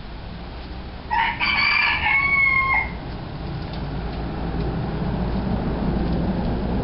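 A small rooster crows once, about a second in: a cock-a-doodle-doo of about two seconds that ends on a held note.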